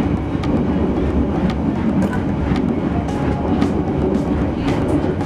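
Passenger train running at speed, heard from inside a coach: a steady rumble of wheels on rail with sharp wheel clicks at uneven intervals.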